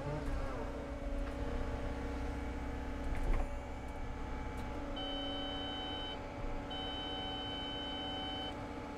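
Cat 315 excavator running as the bucket digs, with a thump about three seconds in. From about five seconds in, the grade-control system's in-cab tone sounds as a steady high beep in two long stretches, signalling that the bucket is at the set trench depth.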